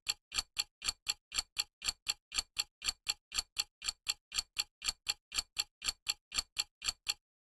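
Clock-ticking sound effect used as a quiz countdown timer: a steady run of even ticks, about four to five a second, that stops about seven seconds in.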